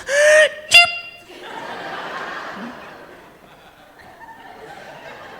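A man mimicking a woman's small, high-pitched sneeze, a rising squeal ending in a sharp squeak under a second in. The audience laughs, and the laughter fades away over the next few seconds.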